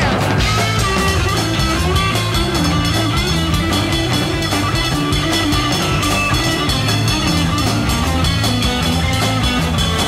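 Rock music soundtrack with electric guitar and drum kit, playing at a steady beat.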